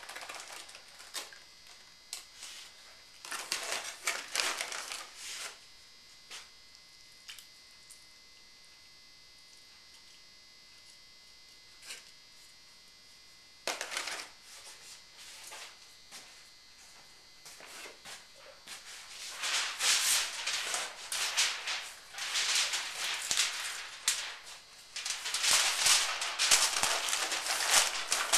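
Heavy-duty aluminium foil crinkling and rustling as it is handled and pressed over a roasting pot. It comes in short bursts at first, goes quiet for several seconds in the middle, then crinkles steadily through the last third.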